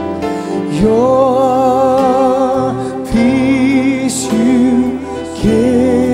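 Live gospel worship music: a single voice holds long notes with wide vibrato, in three phrases, over sustained instrumental accompaniment.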